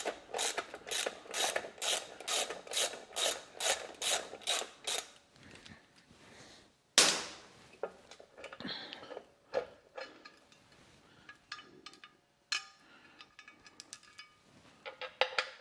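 Hand tool being worked in short, even strokes, about two to three a second, for the first five seconds or so. A sharp metal clank comes about seven seconds in, followed by scattered clicks and knocks as parts are handled.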